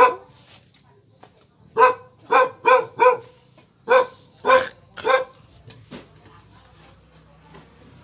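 A dog barking: one sharp bark at the start, then a quick run of four barks about two seconds in and three more about four seconds in.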